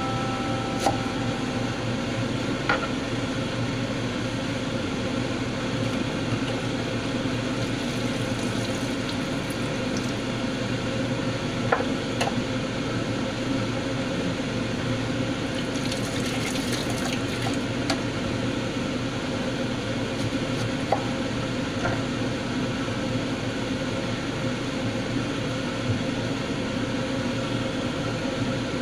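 Steady kitchen background noise with a faint hum, broken by a few sharp knocks of a kitchen knife on a wooden chopping board while green beans are cut, spaced several seconds apart.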